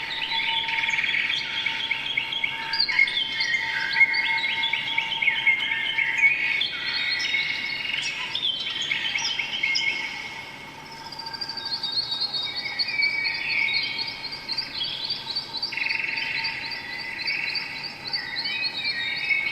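A chorus of several songbirds chirping and trilling over one another, part of the performance's soundtrack; about halfway through a fast, evenly repeating high trill takes over. A faint steady tone sits underneath in the first half.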